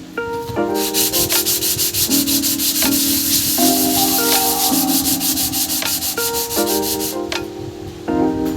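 Rapid back-and-forth hand sanding or scrubbing on a part of a manual meat grinder, about seven even strokes a second, stopping near the end, over light background music with plucked, marimba-like notes.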